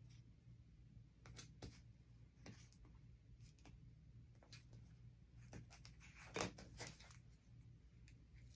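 Faint handling of fabric and double-sided tape on a cutting mat: scattered light ticks and rustles, with one louder tick about two-thirds of the way through, over a low room hum.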